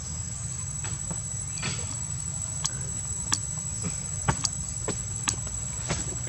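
Steady outdoor background noise: a low rumble and a thin, high, steady whine. About eight sharp clicks come at uneven intervals through the middle and later part.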